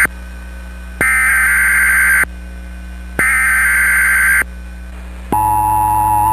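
Emergency Alert System SAME header: buzzy data bursts, each just over a second long and a second apart, the last two of three heard whole. About five seconds in, the steady two-tone EAS attention signal begins, announcing the alert that follows.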